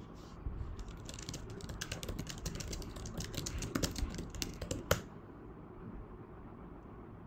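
Typing on a tablet's attached physical keyboard: a quick run of key clicks for about four seconds, ending with one louder keystroke about five seconds in.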